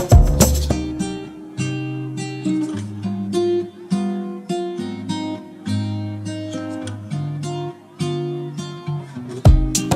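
Background music on acoustic guitar: a melody of plucked, ringing notes, with heavier strummed chords near the start and again near the end.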